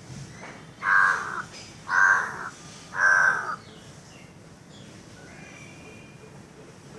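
Crow cawing three times, about a second apart, each caw harsh and about half a second long.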